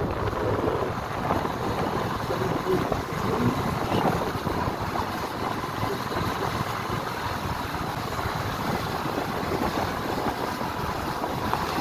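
Honda CB 300F Twister single-cylinder motorcycle riding steadily at low town speed: even engine and road noise under a steady rush of wind on the microphone.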